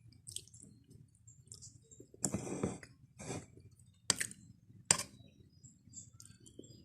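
Duck eggshell being tapped and cracked open: a short crackle about two seconds in, then sharp clicks at about four and five seconds in.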